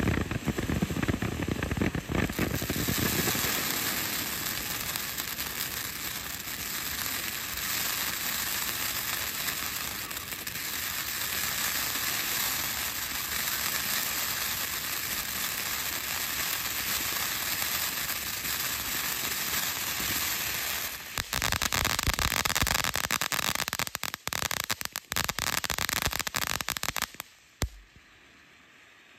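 A firework burning with a long, steady hissing spray of sparks. Near the end it breaks into dense crackling, then stops abruptly as it burns out.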